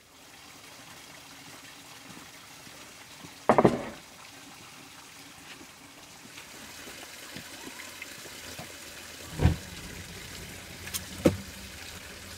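Water trickling steadily, broken by a few sharp knocks or clanks, the loudest about three and a half seconds in.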